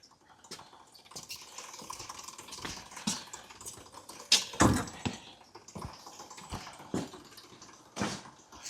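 Scattered clicks, knocks and shuffling as a motorcycle is pushed by hand, engine off, with a louder thump about four and a half seconds in.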